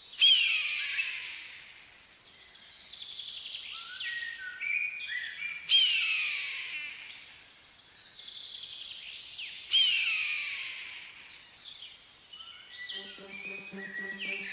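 Red-tailed hawk screaming: three long, hoarse, downward-sliding calls about four seconds apart, with smaller birds chirping between them. Music comes in near the end.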